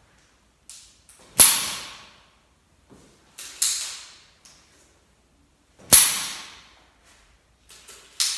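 SwingRite swing-training club clicking as it is swung back and forth: four sharp clicks about two seconds apart, each with fainter ticks just before it and a short echo off the bare tiled room. Each click is the aid's hinged shaft snapping through at speed.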